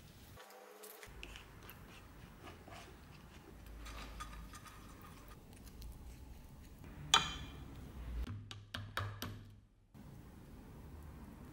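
Faint handling sounds of epoxy being spread onto a brass handle plate with a small stick: light scrapes and small taps, with one sharp click about seven seconds in and a few quicker clicks just after it.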